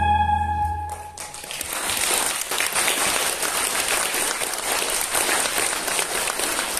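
Backing music stops about a second in, and an audience claps.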